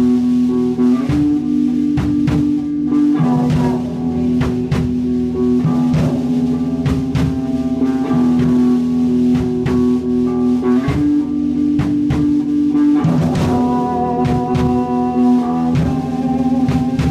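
Electric guitar and drum kit played together live: held, ringing guitar notes that change pitch every few seconds over a steady drum beat with cymbal hits.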